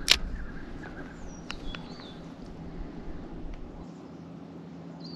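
A sharp click right at the start, then birds calling with a few short whistled notes that slide up and down in pitch, over a low rumble that stops about four seconds in.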